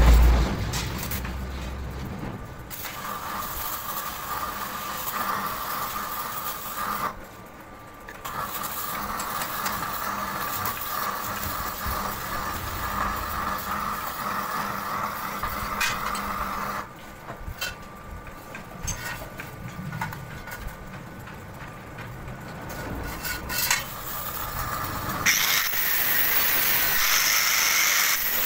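A steady machine hum with a held tone, interrupted briefly, and a few light metallic clicks as the steel strip is handled. About 25 seconds in, an angle grinder starts up and runs with a high, steady whine.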